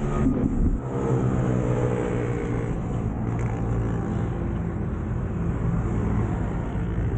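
A motor vehicle, most likely a car, passing close by with its engine pitch falling as it goes by, then a steady engine drone over a low rumble.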